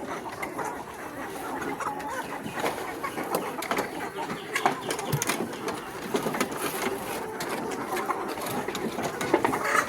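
Chickens clucking and calling together, with scattered sharp clicks.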